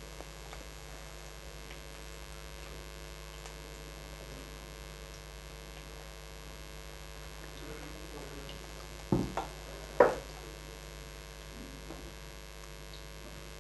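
A steady electrical hum under a faint sizzle of moong dal mangodes deep-frying in mustard oil in an iron kadai. Two short knocks come about nine and ten seconds in.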